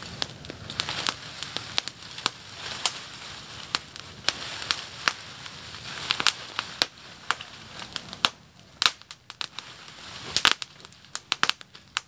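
Open campfire of twigs and dry grass crackling, with many sharp, irregular snaps over a steady rush of flame; the rush thins out after about eight seconds, leaving sparser, sharper pops.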